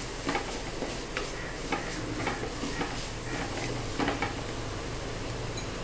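A wooden spatula stirring and scraping drumstick leaves around a clay pot, giving irregular scrapes and soft knocks that stop about four seconds in.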